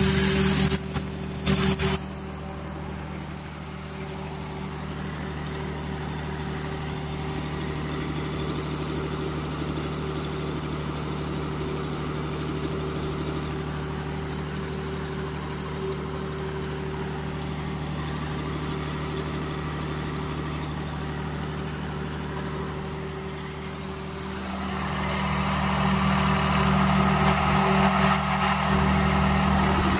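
Cummins diesel generator set running at a steady speed with an even engine drone. It drops in loudness after about two seconds and grows louder again near the end.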